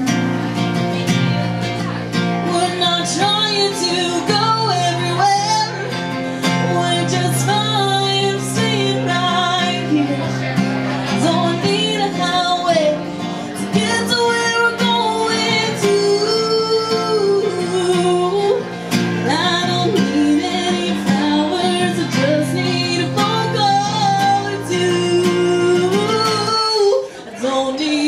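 Country song performed live: a woman singing over guitar accompaniment, with a brief break in the music about a second before the end.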